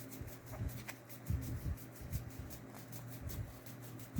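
Quiet handling of trading cards on a tabletop: a few soft taps and faint rustles over a steady low hum.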